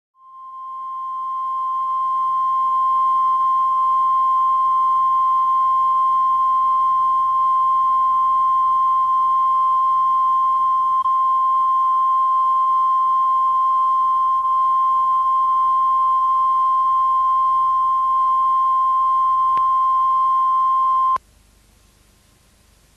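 Steady single-pitch line-up test tone at the head of a videotape transfer. It fades in over the first couple of seconds, holds level, then cuts off abruptly near the end, leaving only faint hiss.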